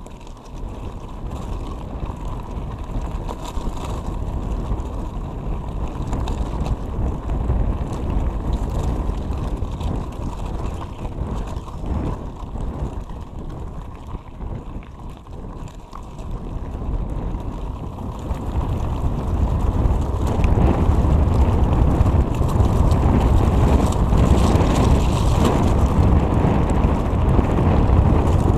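Wind buffeting the microphone of a mountain bike rider's camera, mixed with the tyres and bike rattling over a gravel track. It grows louder about two-thirds of the way in.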